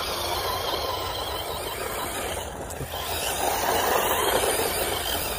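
Arrma Typhon 6S RC buggy driving across grass, its brushless motor and drivetrain whining, swelling loudest about four seconds in.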